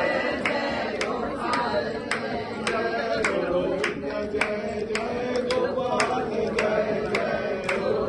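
Devotional kirtan music: voices singing over a steady percussive beat of about two sharp strikes a second.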